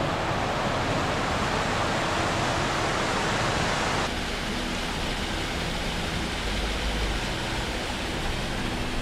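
Rushing mountain stream pouring over rocks: a steady rush of water, dropping a little in level about four seconds in.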